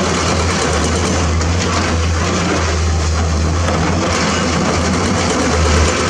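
Excavator's diesel engine running steadily with a deep low hum, swelling slightly just before the end.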